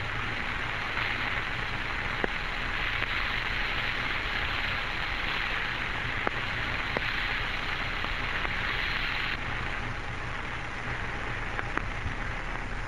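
Steady hiss of the Mercury capsule's 1962 radio voice recording between transmissions, with a few faint clicks. The hiss thins slightly about nine seconds in.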